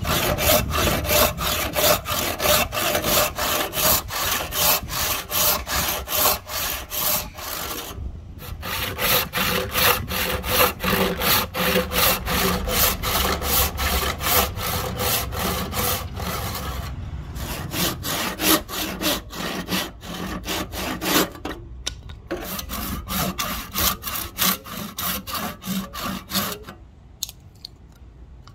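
Hand saw cutting through a Siamese rosewood axe handle blank in quick, even back-and-forth strokes, pausing briefly a few times and stopping shortly before the end.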